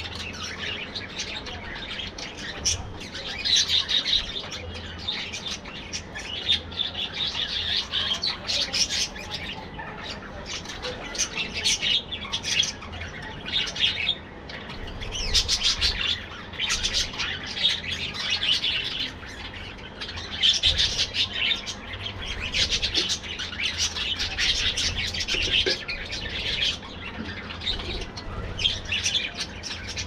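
A flock of budgerigars chattering and chirping without a break, rising into louder spells of warbling every few seconds.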